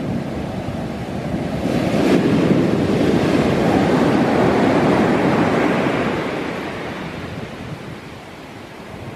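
Big ocean waves breaking on the shore: one wave crashes about two seconds in, rushes for several seconds, then washes out and fades.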